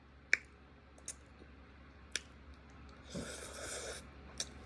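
Quiet eating sounds: a few light, sharp clicks, such as a fork on a plate, and a short wet mouth noise about three seconds in.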